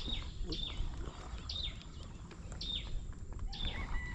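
A bird calling repeatedly, a short high note that sweeps downward, about six times at uneven intervals, over low background noise.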